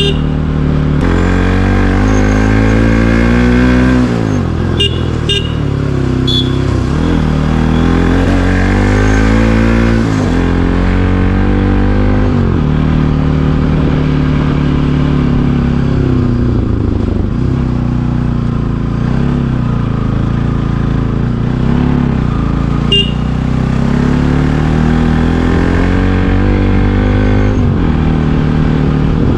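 Bajaj Pulsar NS200's single-cylinder engine running hard on the move. The revs climb and fall back several times as the throttle is opened and closed.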